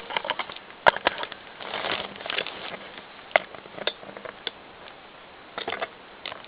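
Plastic Lego bricks being handled: irregular clicks and short rattling rustles, with a sharp click about a second in.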